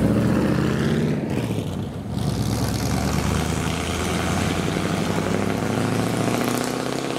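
V8 engine of a classic Chevrolet pickup truck running as the truck pulls away. The engine note is steady, with a brief dip in level about two seconds in.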